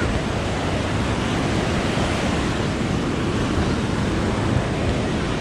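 Ocean surf breaking and washing on a sandy beach, a steady rushing noise with no single wave standing out.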